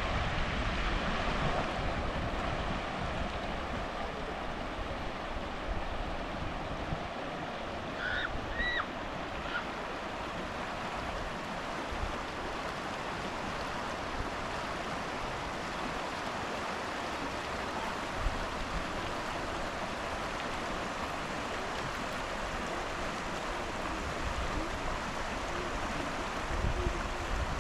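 Steady rush of river water flowing over rocks. Wind buffets the microphone at the start, and a few brief high chirps come about eight to ten seconds in.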